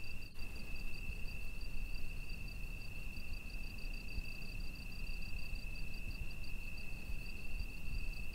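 Night ambience of insects: one steady high-pitched trill and, above it, a second, faster pulsing chirp, over a low rumble.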